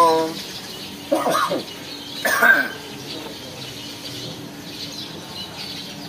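Hill mynas calling: a loud pitched call at the start, then two more about a second and two seconds in, the last one loudest. After that only faint background chirping remains.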